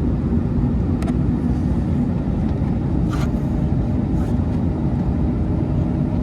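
Steady low rumble of the Airbus A321neo's engines and airflow heard inside the passenger cabin, with a few faint clicks.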